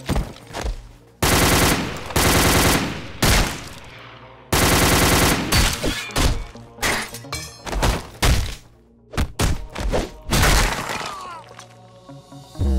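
Cartoon submachine-gun fire sound effects in several rapid bursts, the longest about a second and a half, with shorter shots and hits between them.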